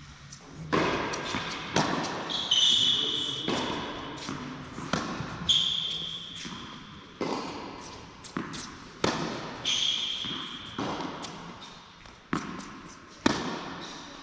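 Tennis rally on an indoor hard court: sharp racquet strikes and ball bounces about once a second, each ringing out in the large hall, with a few short high squeaks of sneakers on the court surface.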